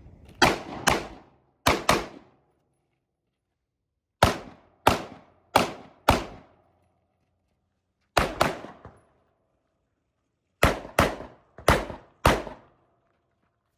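Rifle shots fired in quick strings of about four, each with a sharp crack and an echoing tail, with pauses of a second or two between strings as the shooter moves between targets or positions.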